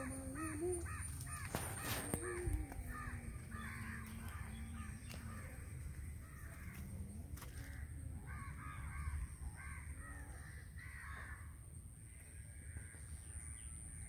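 Crows cawing over and over in bouts of short calls, with a steady high-pitched whine behind them.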